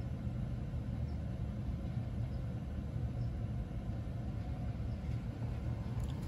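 Steady low background rumble with a few very faint small ticks.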